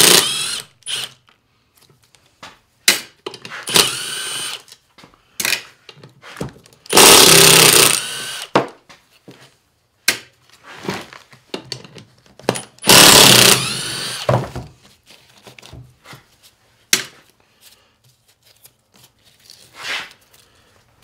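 Cordless impact driver running in four bursts as it backs bolts out of an NP231 transfer case housing. The first two bursts are short and the last two last about a second and a half each, the motor pitch rising and falling with each trigger pull. Short knocks and clinks fall between the bursts.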